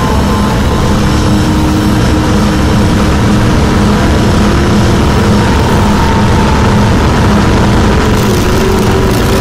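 Harsh noise music: a loud, dense, unbroken wall of distorted noise with a few faint held tones running through it.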